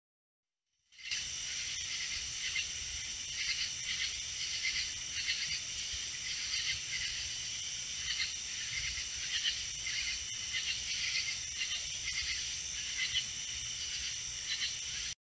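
Night insect chorus: crickets chirping, a steady high shrill with irregular pulsing chirps over it and a faint low rumble beneath. It starts about a second in and cuts off suddenly near the end.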